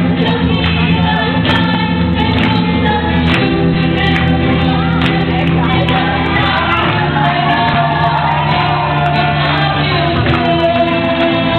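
Music with singing and a steady beat, played loud.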